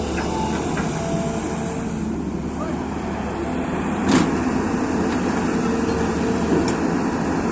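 Diesel engine of heavy earth-moving machinery running steadily, with a sharp knock about four seconds in and a lighter click near the end.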